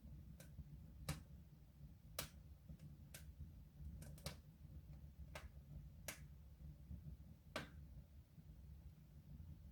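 Wood fire crackling in a soapstone stove: sharp, irregular pops about once a second over a low steady rumble.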